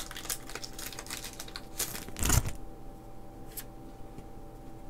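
A foil Pokémon TCG booster pack wrapper crinkling and tearing open: a run of crackles, with the loudest burst a little over two seconds in. Softer rustling of the cards follows.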